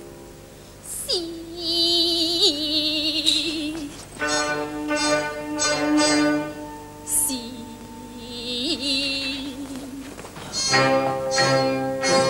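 Teochew opera aria: a woman sings long, wavering held notes with the opera band accompanying, in phrases broken by short pauses.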